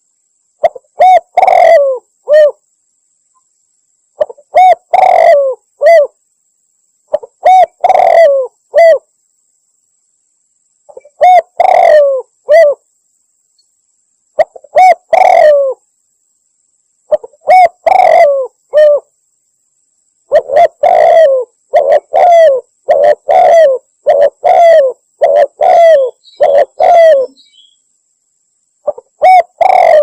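Spotted dove (tekukur) lure call: repeated phrases of three or four low, falling coos, separated by gaps of silence. About two-thirds of the way in the phrases follow each other closely for several seconds.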